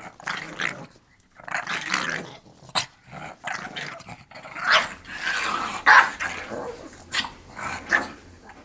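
Small Chihuahua–pug mix dog growling in bursts while spinning after her tail, with a few sharp barks, the loudest about five and six seconds in.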